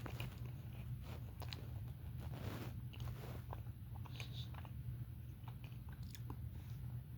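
A person chewing and biting food close to the microphone: soft wet mouth sounds with small crunchy clicks, over a steady low hum.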